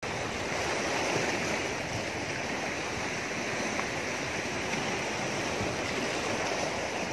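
Sea surf washing over and around shoreline rocks, a steady rush of water.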